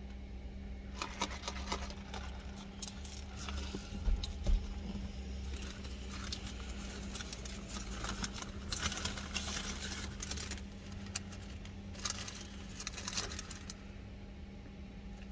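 Paper food wrapper around hash browns crinkling and rustling in irregular bursts as it is opened, with a couple of soft thumps about four seconds in, over a steady low hum.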